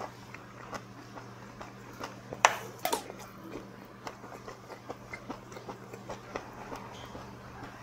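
Close-up eating sounds: chewing and soft mouth noises, with small clicks of metal chopsticks and a spoon against dishes. Two sharper clicks come about two and a half and three seconds in.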